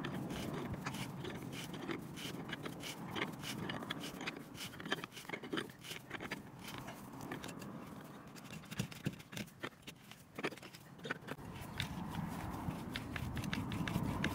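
Hand auger bit turned by its wooden T-handle, boring into the end grain of a log round: scraping and crunching of wood with many irregular clicks.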